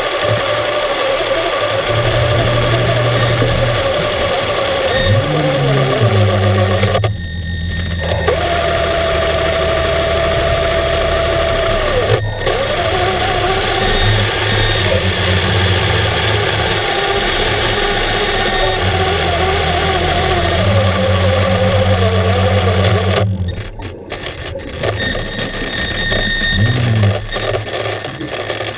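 Electric motor whir heard underwater, several tones that hold for a few seconds, then step or glide to a new pitch. It cuts out briefly about seven seconds in and falls away again near the end.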